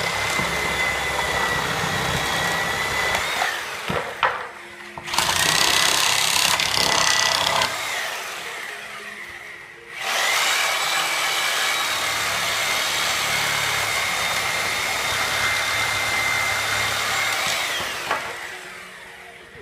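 Porter-Cable Tiger Saw reciprocating saw cutting through the nails between pallet boards. It runs in three bursts, the last and longest about eight seconds, with a steady motor whine that winds down as each burst stops.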